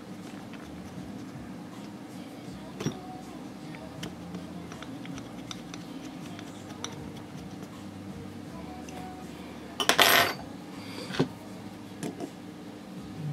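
Small metal hardware from the printer's frame corners clicking and clattering as it is handled, with a louder rattle about ten seconds in, over a low steady hum.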